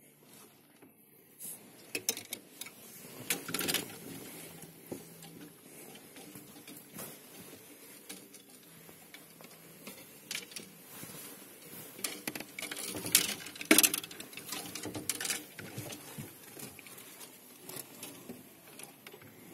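Rustling and scattered irregular knocks and clicks as someone shifts about among clothes and bags in a cramped wardrobe, with the phone rubbing and bumping against them. The loudest knocks come a little past the middle.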